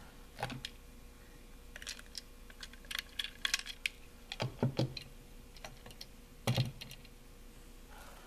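Scattered small plastic clicks and taps as fingers handle a Trackmaster Royal Spencer toy train's tender while uncovering its battery compartment.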